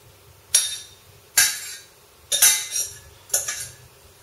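Metal spoon scraping and clinking against a stainless steel saucepan while stewed apple is spooned out, in about five separate strokes spaced under a second apart.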